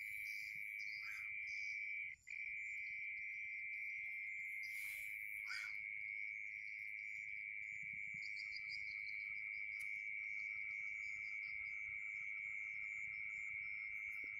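Night insect chorus in a rice paddy: a steady high-pitched cricket trill that drops out for an instant about two seconds in, with scattered higher chirps over it. From about eight seconds in a lower pulsing trill joins, and two short falling whistles come about five seconds in.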